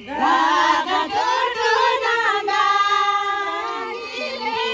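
Several women singing together in Tibetan, their voices coming in loudly all at once and wavering in pitch.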